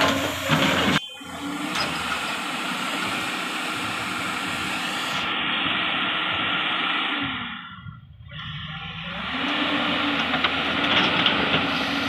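Heavy diesel machinery running: a JCB hydraulic excavator working while it loads a tipper truck, with the truck's engine running alongside. A steady engine hum carries a hiss over it. It fades briefly about eight seconds in, then picks back up with the engine pitch rising.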